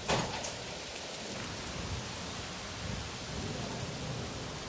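Steady rain falling in a severe thunderstorm, with one short, sharp burst right at the start.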